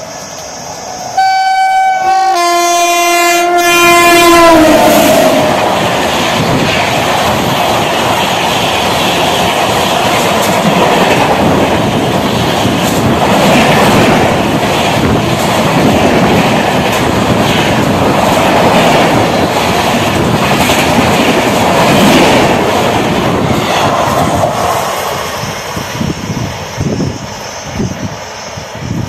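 Electric locomotive horn on an express train, blown in two blasts about one and two-and-a-half seconds in, its pitch dropping as the locomotive passes. Then the LHB coaches rush past at speed with a steady rumble and clickety-clack of wheels over rail joints, fading away near the end.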